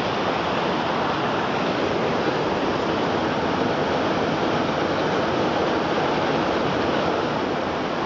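Fast-running creek water rushing over rocks in a small cascade: a loud, steady rush.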